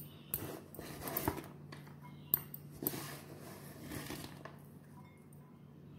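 A few light clicks and soft rustles of chopped food being handled over a glass bowl, at irregular moments, over a steady low hum.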